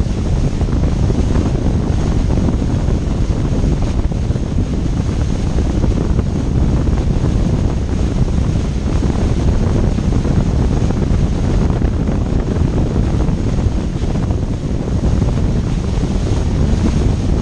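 Steady wind buffeting the camera microphone at speed, mixed with the rush of spray and the engine of a jet ski running flat out on the sea.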